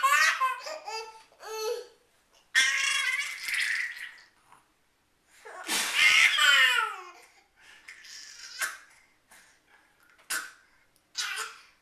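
A baby laughing and babbling in high-pitched bursts. One longer call about six seconds in slides down in pitch, and shorter bursts are spaced out after it.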